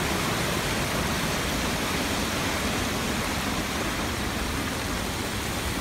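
Mountain stream rushing over rocks in white-water rapids: a steady, unbroken rush of water.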